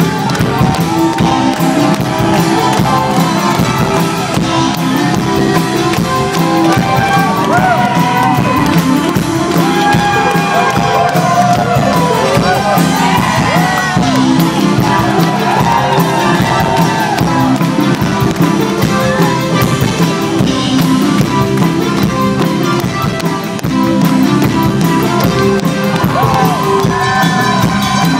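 Live rock band playing loudly: electric bass, drum kit and keyboard with a steady beat and sliding melodic lines, heard through a phone in the audience.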